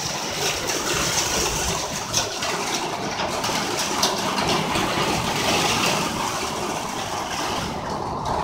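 Heavy rain falling steadily: a continuous hiss with scattered sharper ticks.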